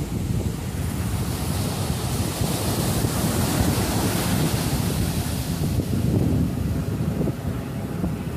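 Ocean surf breaking on the beach: a wave crashes and washes up the sand, its hiss building about a second in and fading away a few seconds later. Wind rumbles on the microphone throughout.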